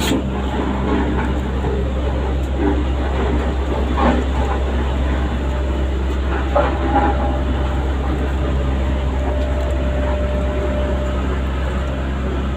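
A dog barks sharply twice, about four seconds in and again a little before seven seconds, over a steady low rumble.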